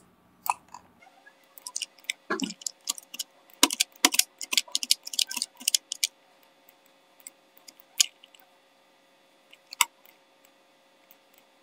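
Rapid, irregular clicks of a computer mouse and keyboard, sped up, densest in the middle few seconds and thinning out towards the end.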